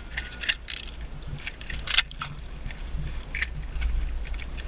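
Metallic clicks and rattles of an M1014 combat shotgun being loaded with slugs, with one sharper clack about two seconds in, over a steady low rumble.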